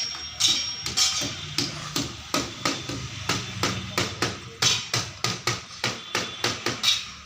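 Hammer blows on the metal of a truck body being fabricated, in a steady rhythm of about three strikes a second, some with a short metallic ring.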